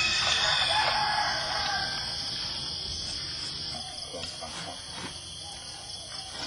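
Steady high-pitched insect chorus, with a rooster crowing in the first couple of seconds.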